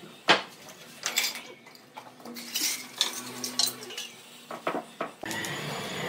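Sharp metallic clanks and rattles of a steel band saw blade being handled on a band sawmill's large wheel. The loudest clank comes about a third of a second in, and a steadier noise comes in near the end.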